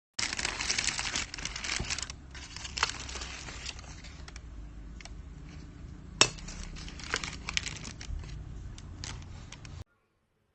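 Crinkling and rustling of packaging in the first two seconds, then light clinks and taps from handling a Bialetti Moka Express aluminium stovetop coffee maker, with one sharp click about six seconds in.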